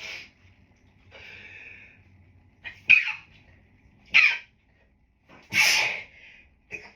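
A person's stifled allergy sneezes, set off by a dog allergy: a breathy drawn-in breath, then three sharp sneezes over a few seconds, the last one drawn out longer.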